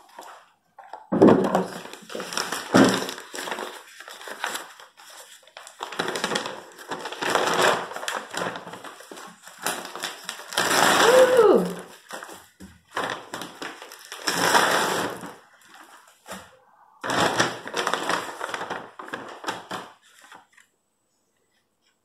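Paper instruction leaflet from a hair-dye kit rustling and crinkling as it is unfolded and handled, in irregular bursts with short pauses between.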